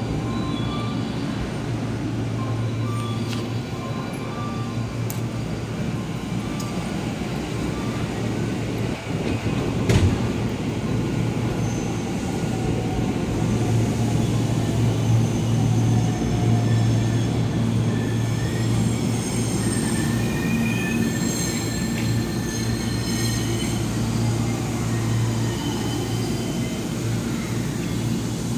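JR electric commuter trains moving along a station platform: a steady low motor hum under wheel-on-rail noise, with a rising whine about a third of the way in and high wheel squeal in the second half.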